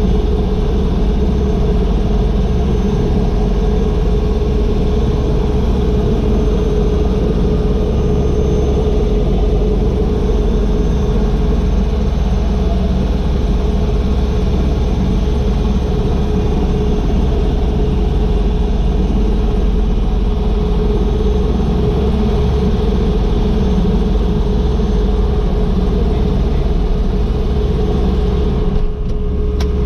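Agusta AW119 helicopter's single Pratt & Whitney PT6B turboshaft engine running steadily at low power on the ground, a constant whine over a low rumble, heard from inside the cockpit.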